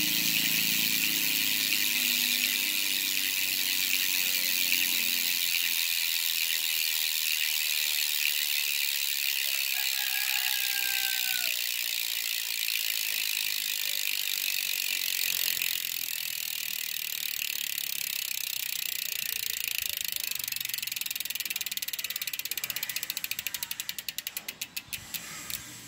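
Aeroic AM3.5 bicycle hub's freehub clicking rapidly as the wheel spins freely. Near the end the clicks slow into separate ticks as the wheel winds down.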